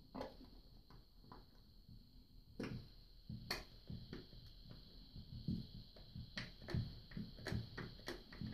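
Faint, irregular small clicks and scrapes of a screwdriver turning the set screw up into the base of a towel bar bracket, tightening the bracket onto its wall mount. The clicks come more often in the second half.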